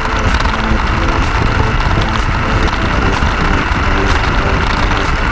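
A 3D-printed OpenRC F1 RC car driving on a concrete path, heard from its onboard camera: a steady electric drive whine and tyre rolling noise over a low rumble of wind on the microphone.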